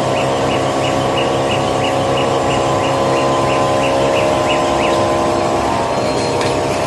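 Automatic tissue paper packing machinery running: a steady mechanical hum with a regular light ticking, about three ticks a second, that stops about two-thirds of the way through.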